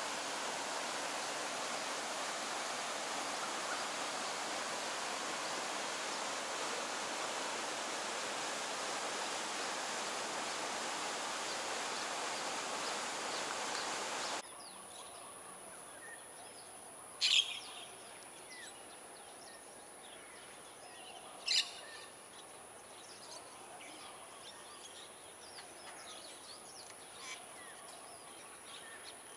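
A steady rushing noise cuts off abruptly about halfway through. After it comes quieter outdoor ambience with a thin, steady high-pitched whine, two loud short bird calls a few seconds apart, and fainter chirps.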